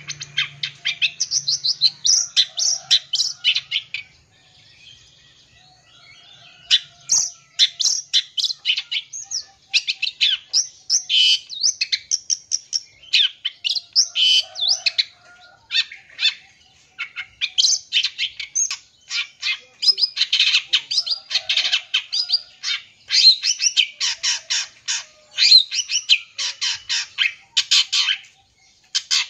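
Long-tailed shrike (cendet) singing a fast, busy song of chattering notes mixed with mimicked calls of other birds. It breaks off briefly about four seconds in, then resumes with rapid strings of notes.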